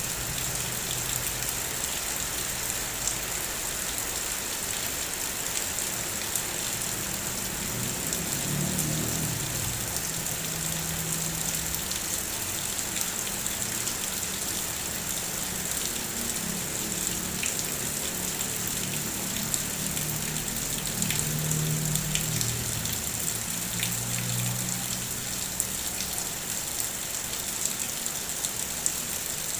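Heavy rain falling steadily, with scattered separate drops tapping on a surface. A low droning hum rises and fades a couple of times in the middle.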